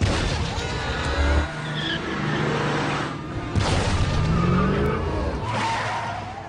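Film action sound effects: a loud explosion right at the start, then more blasts and crashes about three and a half and five and a half seconds in, mixed with vehicles skidding and tires screeching.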